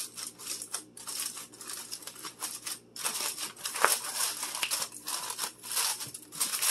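Aluminum foil crinkling and crackling in short, irregular bursts as hands crimp it tightly around the rim of a disposable aluminum pan.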